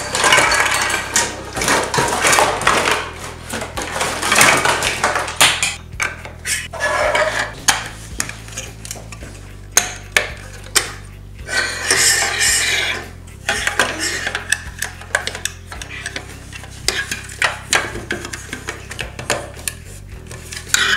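Hard plastic toy-crane parts clattering and clicking against each other as they are unpacked and handled, mixed with rustling of the packaging.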